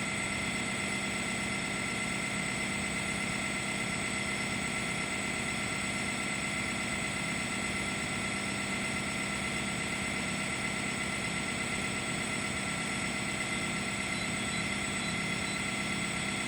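Sawmill's engine running steadily, an unchanging drone with a high whine in it.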